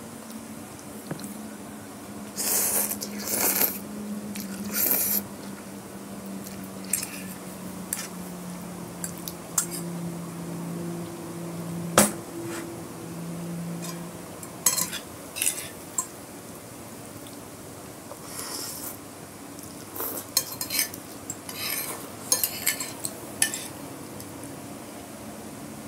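Metal fork and spoon scraping and clinking against a glass plate in short, irregular strokes, clustered near the start and toward the end, with one sharp clink about halfway through.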